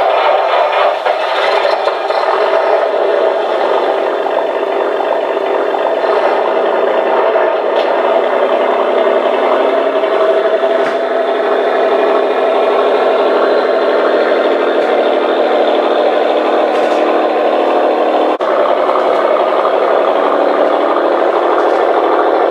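On30 narrow-gauge model train, a Galloping Goose-style motor railcar pulling a boxcar, running along the layout's track with a steady mechanical running noise from its motor and wheels.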